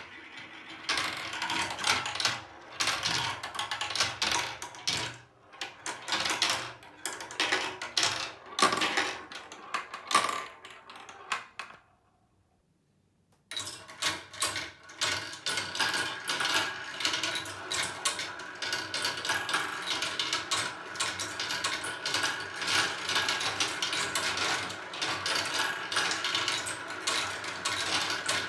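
Small plastic balls rolling and clattering through a plastic snap-together marble run, rattling around its funnels, spiral and curved tracks. The rattle is uneven at first, drops out briefly about twelve seconds in, then many balls run at once in a dense, continuous clatter.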